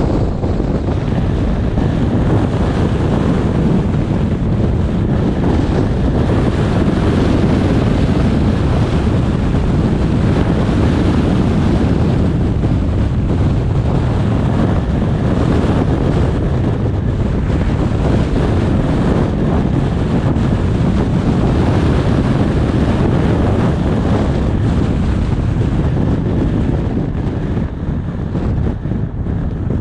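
Wind blowing over the microphone of a GoPro action camera on a moving car, a steady rumble with no breaks, mixed with tyre and road noise.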